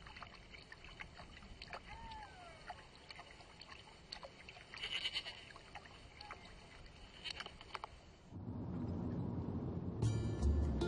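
Faint outdoor hiss with scattered light clicks and taps and one short gliding call about two seconds in. About eight seconds in this gives way to the louder low road rumble of a car driving, heard from inside the car, with music starting near the end.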